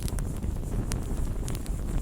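Strong wind rumbling steadily, with several scattered sharp ticks.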